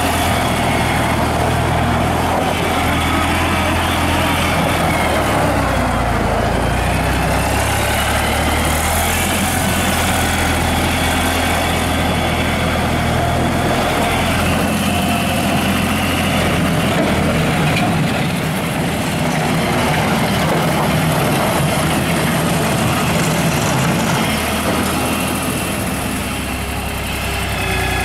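New Holland LS180 skid steer loader's diesel engine running steadily, with a high whine that glides up and down in pitch several times in the first half.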